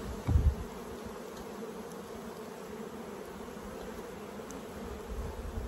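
Honeybees buzzing steadily around an open hive, agitated by the Fischer's Bee-Quick fume board driving them down out of the honey super. A short low thump about half a second in as the wooden fume board settles onto the box.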